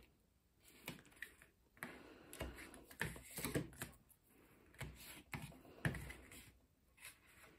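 Irregular small clicks, taps and paper rustles of hands applying thin double-sided tape from a roll to the edges of a small paper pocket and handling the tape roll and tools on a wooden table, with a sharper tap about six seconds in.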